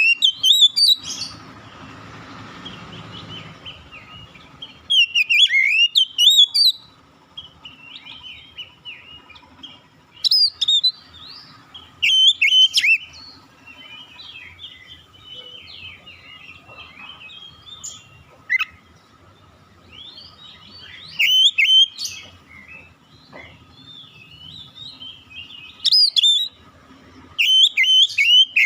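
Oriental magpie-robin (kacer) singing: loud whistled phrases of quick rising and falling notes, repeated every few seconds, with softer twittering in between.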